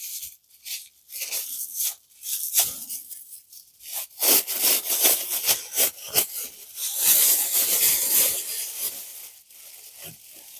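Thin clear plastic bag crinkling and rustling as it is untied and pulled open by hand. The crackle is sparse at first and grows denser and louder about halfway through.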